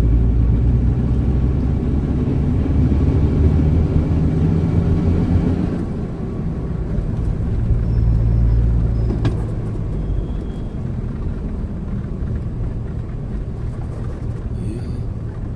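Nissan Patrol Y60 driving, heard from inside the cabin: a low engine and road rumble, loudest in the first six seconds, swelling again briefly around eight seconds, then easing off. A single short click about nine seconds in.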